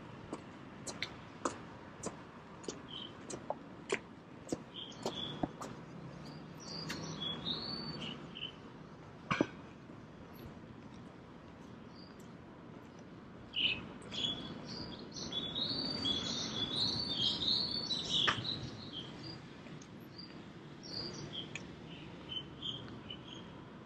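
Small birds chirping in short scattered calls, rising to a busy flurry of chirping about two-thirds of the way in, over a low steady hum. Sharp ticks come every second or so through the first half.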